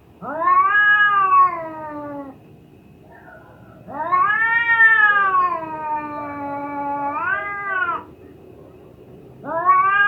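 Cat in heat caterwauling: three long, drawn-out yowls, each rising and then falling in pitch. The middle one lasts about four seconds and lifts again near its end, and the third starts near the end.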